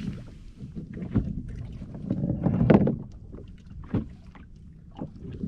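Knocks and clunks of handling on a small fishing boat, with a louder clatter about two and a half seconds in, over a low rumble of water and wind against the boat.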